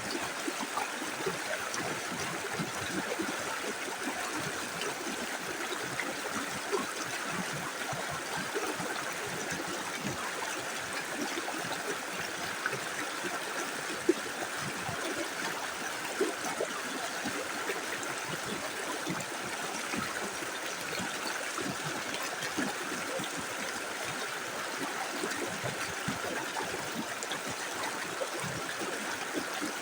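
Small river running over stones: a steady rush of flowing water with constant small gurgles and splashes, and one brief sharper click about halfway through.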